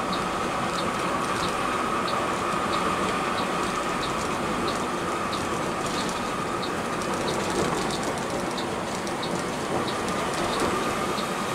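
Steady running noise of a Mercedes-Benz 1626 coach under way, with a light tick repeating evenly about one and a half times a second.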